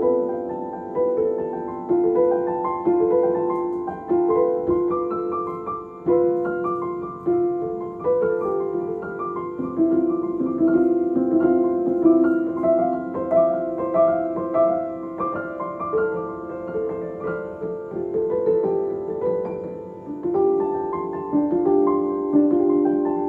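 Background piano music: notes and chords struck one after another, each fading away.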